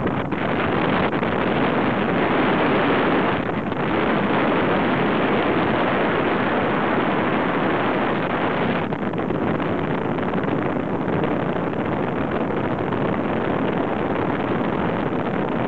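Wind buffeting the camera's microphone during a tandem paraglider flight: a loud, steady rush of air.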